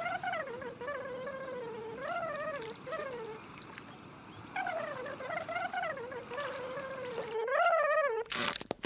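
Cartoon sound effect: a warbling tone that glides up and down in several phrases over a faint watery hiss, then rises in a quick wobble near the end, followed by a few short taps.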